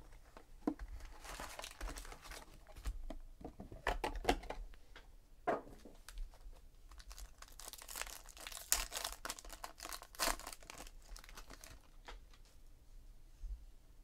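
Foil wrapper of a Panini Contenders Draft Picks football card pack torn open and crinkled by hand, a run of crackles and rips that dies down near the end.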